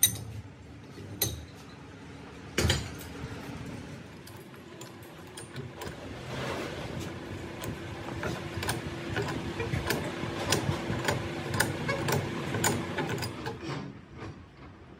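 Heavy steel bench vise clanking three times as its sliding T-bar handle is worked. From about five seconds in, metal scrapes steadily with rapid clicks as a wrench turns a threaded hydraulic jack part clamped in the vise, stopping shortly before the end.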